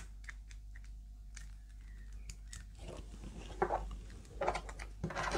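Faint handling noise from a translucent plastic action figure being turned over in the hands. There are small scattered clicks at first, then louder scrapes and rustles in the second half.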